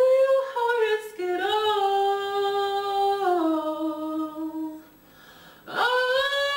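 A single voice singing a cappella in long held notes that step down in pitch, pausing about five seconds in before another held note begins.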